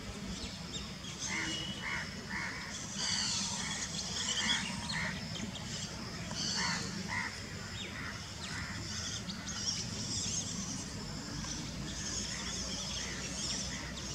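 Birds calling outdoors: a run of short repeated calls about two a second in the first few seconds, with higher chirping throughout over a steady background.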